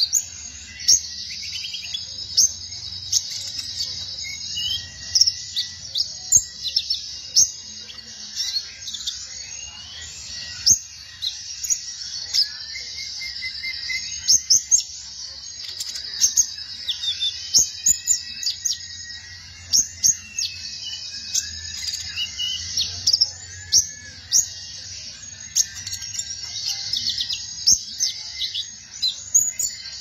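Male van Hasselt's sunbird (kolibri ninja) singing: a fast, high-pitched run of sharp chirps and short trills over a steady high hiss.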